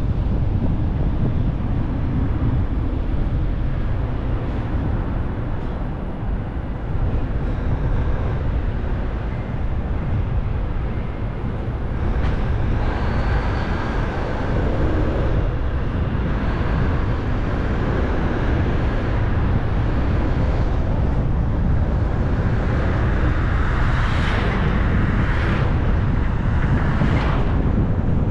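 Car driving along a road: steady low rumble of tyres and engine with wind noise, and a few brief louder swells of noise in the second half.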